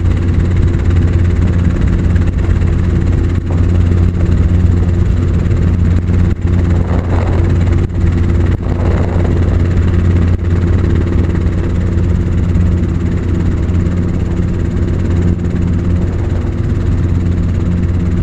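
Helicopter in flight heard from inside the cabin: a steady, loud drone of rotor and engine, with a low hum and a few faint clicks.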